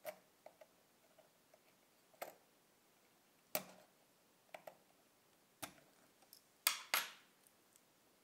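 Small metal tool clicking and tapping against the lens and shutter housing of a Minolta Hi-Matic 7s film camera: about eight sharp ticks at uneven intervals, the loudest two in quick succession near the end.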